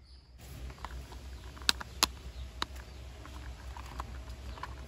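Plastic parts of a toy car body clicking and tapping as they are handled and pressed together: a few sharp clicks, the loudest two close together a little under two seconds in, with lighter taps after.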